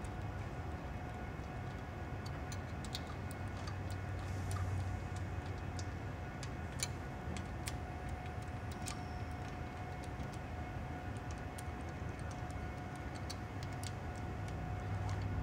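Light, irregular metal clicks of a socket on an extension and the rocker-stand bolts being turned in by hand, over a steady low hum.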